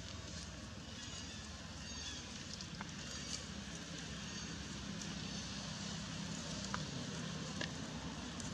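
Steady outdoor background noise with a low hum, a few faint high chirps and some small clicks.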